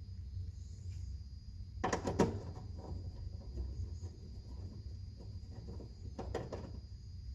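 A few sharp clicks and light clatter, like small parts or tools being handled, in a cluster about two seconds in and another near the end, over a steady low hum.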